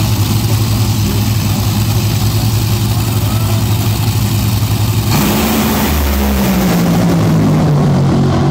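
Two Top Fuel dragsters' supercharged nitromethane V8 engines running loudly at the starting line, then launching at full throttle about five seconds in, the engine pitch falling as the cars pull away down the track.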